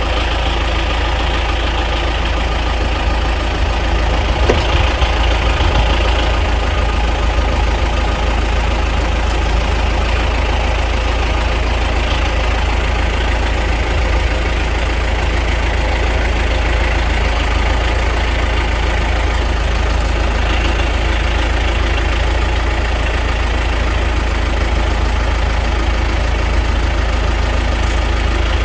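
An engine running steadily at a constant speed, with a heavy low rumble and no changes in pitch.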